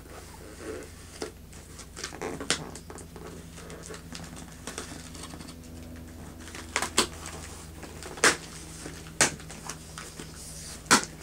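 Toy packaging being handled and opened: rustling, with several sharp crackles and clicks spaced irregularly, the loudest near the end.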